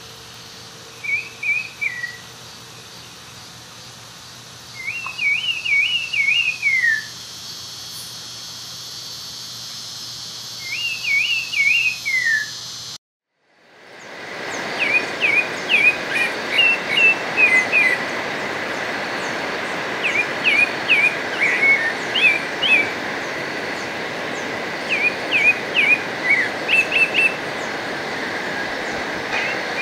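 Pale-breasted thrush (sabiá-branco) singing: three short warbled phrases of whistled notes that fall at the end, several seconds apart. After a brief break, a steady hiss fades in behind quicker, more frequent phrases of short notes.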